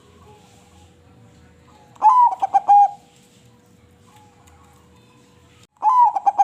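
Crossbred zebra dove (perkutut) cooing: two loud song phrases about a second long, each a sharp opening note followed by a quick run of rolling coos, the second beginning near the end. Fainter coos from other doves sound in the gaps.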